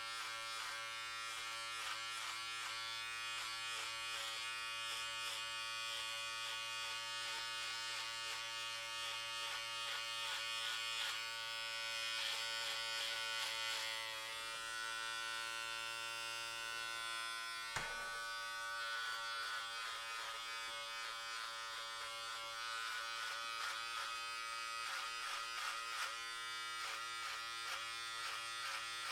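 Electric hair clippers buzzing steadily while cutting hair, the tone wavering and shifting a little as the blades work through it. A single brief click comes about eighteen seconds in.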